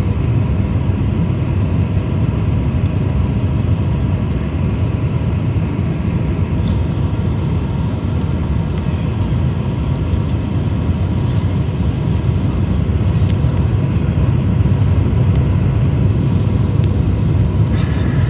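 Steady airliner cabin noise on the descent to landing: the jet engines and the rush of air over the fuselage make an even low rumble, with a faint steady whine over it.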